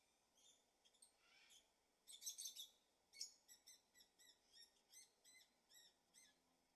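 Faint bird chirping: a few scattered calls, then from about three seconds in a run of short, evenly repeated high chirps, about four a second.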